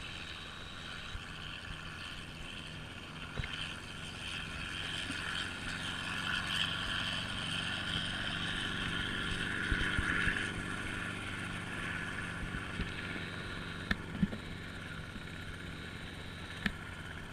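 Steady outdoor airfield background noise: a low steady hum and a hiss that swells towards the middle, with a few sharp clicks near the end. The helicopter in view is shut down and makes no sound.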